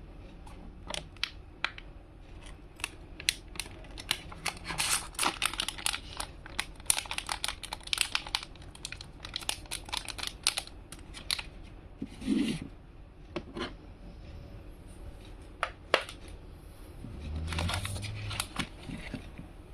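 Hands handling packaging and a small plastic earbud case: rapid crinkling and crackling with many sharp clicks and taps, a duller knock about two-thirds of the way through, then more rustling near the end.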